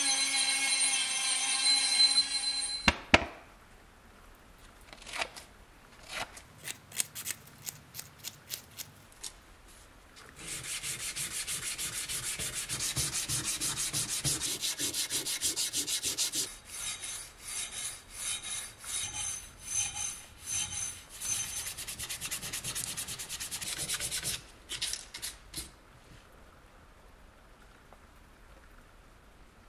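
A small handheld rotary tool runs with a steady whine for about the first three seconds as its sanding drum grinds filler on a metal model's wing joint. After a few scattered knocks, fine P400 sandpaper is rubbed in quick strokes over the metal model for about fourteen seconds, then stops.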